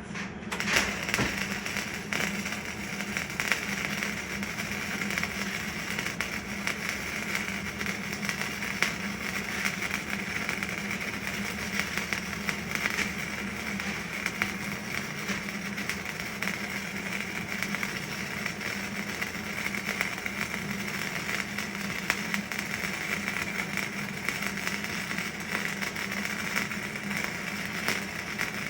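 Electric arc welding on rusty steel I-beam: the arc strikes just after the start and crackles steadily without a break, laying one long bead, over a steady low hum.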